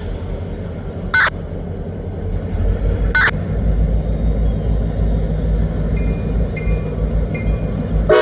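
Diesel freight train rumbling, growing louder from about two and a half seconds in, with two short sharp clicks early on. Its horn starts to sound right at the end.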